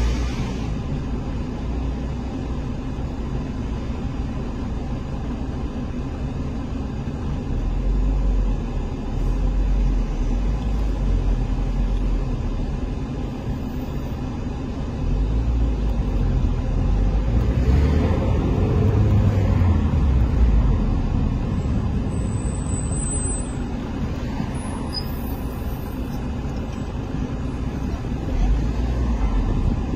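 Road traffic: vehicle engines running and tyres on the road, a steady low rumble that swells louder for a few seconds past the middle as a vehicle moves close by.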